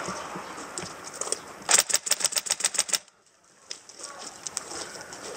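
Airsoft gun firing a rapid full-auto burst of about a second and a half. After a short drop-out, a few scattered sharp clicks follow.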